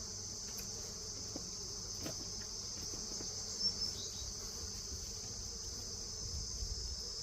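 Steady, high-pitched chirring of insects, with a faint low hum of bees around the hive.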